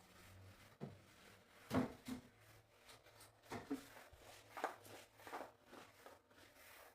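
Scattered light knocks and clicks, about eight in all and irregularly spaced, the loudest about two seconds in, over a faint steady low hum.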